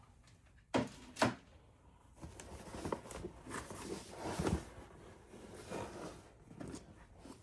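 Two sharp clicks about a second in, then a few seconds of uneven rustling and scraping as a hand-made foam-board and paper box is handled and pressed together during hot-gluing.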